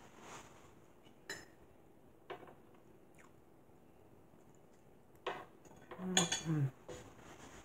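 A fork clicking and clinking against a dinner plate several times, with the loudest clatter about six seconds in. A brief vocal sound from the eater comes at the same moment.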